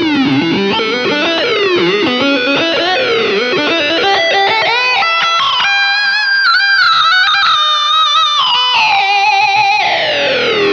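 Electric guitar through an EarthQuaker Devices Data Corrupter PLL synth pedal on its glide setting: dense synth tones with many stacked harmonics sliding, stepping and wobbling in pitch, then sweeping steadily downward near the end.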